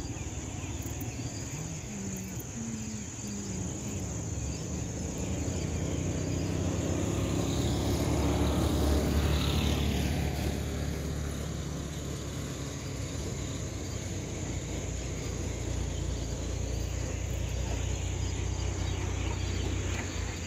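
Insects calling steadily, a continuous high buzz over an outdoor background, with a low rumble that swells to its loudest about halfway through and then fades.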